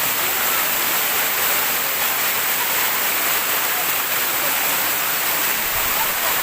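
Waterfall rushing steadily, a constant hissing roar of falling water.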